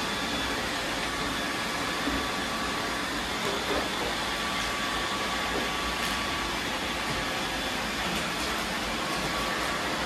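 Several robot vacuums running at once on a hardwood floor: a steady whirring of motors and brushes with a couple of faint high whines, and a few light clicks.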